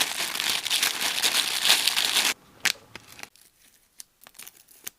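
Packaging material being handled and crinkled for about two and a half seconds, stopping abruptly, followed by a few scattered light clicks and taps.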